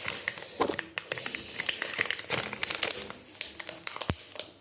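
Packaging crinkling and rustling as it is handled, with scattered small clicks and a soft thump near the end.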